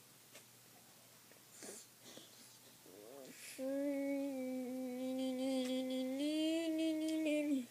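A boy humming one long steady note, which steps up to a slightly higher note partway through and then cuts off sharply. Faint soft handling noises come before it.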